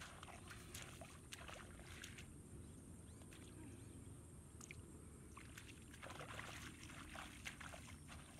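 Faint splashing and sloshing of bare feet wading through shallow muddy water, in two spells: one in the first two seconds and another from about six seconds in to near the end.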